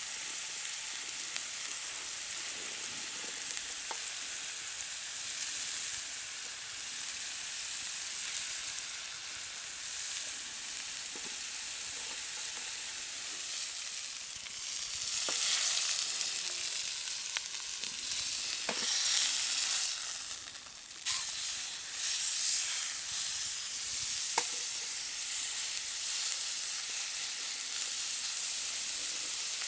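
A thick steak sizzling in hot oil in a frying pan. It is a steady high hiss that gets louder for a few seconds about halfway through, with a few faint ticks.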